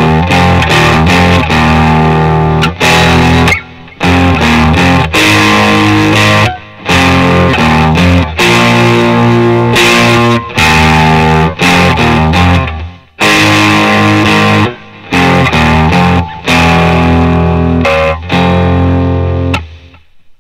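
Distorted electric guitar, a Strat-style Fender with single-coil pickups, playing a riff of ringing low chords that are cut off abruptly every second or two. The riff dies away near the end.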